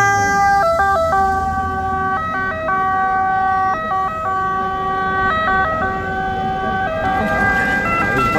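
Ambulance two-tone siren of the Italian kind, jumping back and forth between two pitches, with the vehicle's engine running underneath.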